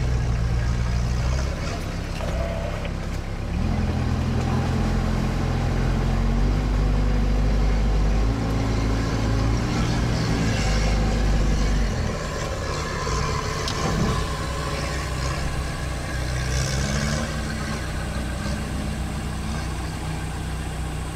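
All-terrain vehicle's engine running under load while crawling up a grassy gully. The revs rise about four seconds in, stay up for several seconds, drop about twelve seconds in, then lift a little again.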